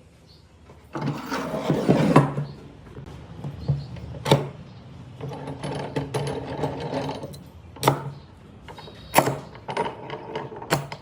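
A small power tool running in two short bursts, about a second in and again around the middle, with sharp knocks and clicks on wood between them.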